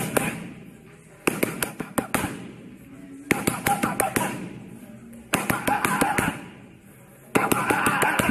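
Boxing gloves smacking into the padded arms of a boxing training machine: quick flurries of several sharp hits, about one flurry every two seconds.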